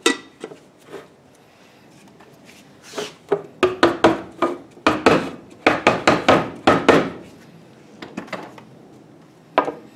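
A mallet tapping the lid of a metal paint can shut: a rapid run of sharp taps, about four a second, from about three seconds in until about seven seconds in.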